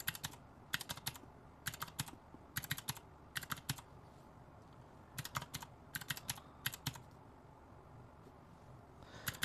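Calculator keys being tapped in quick runs of two to four clicks, about one run a second, while a column of figures is added up; the tapping pauses briefly near the middle and longer near the end.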